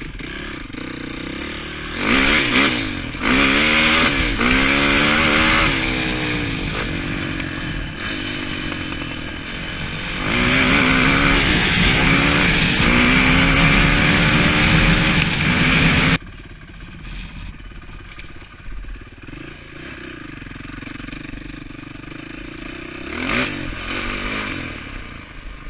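2007 Honda TRX450R quad's single-cylinder four-stroke engine accelerating hard, its pitch rising and falling as it revs up through the gears, with wind noise on the microphone. About two seconds in it opens up, runs loud until about sixteen seconds, then drops off sharply to a lower, steadier running, with one short rev near the end.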